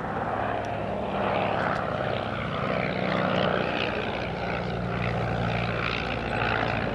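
De Havilland DH60X Moth biplane in flight, its 105 hp Cirrus Hermes II four-cylinder inline engine and propeller running with a steady note that swells gently in loudness as it passes.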